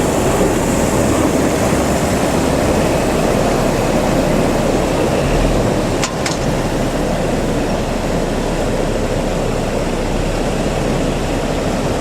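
Heavy slurry-seal road equipment running steadily, a constant engine rumble, with two short clicks about six seconds in.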